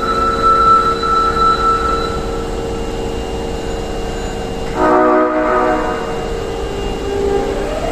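Osaka Metro 22 series train 22615F sounding one short horn blast about five seconds in, lasting about a second; this set's horn is known for an odd, abnormal sound. Near the end the train's motor whine starts to rise as it pulls away.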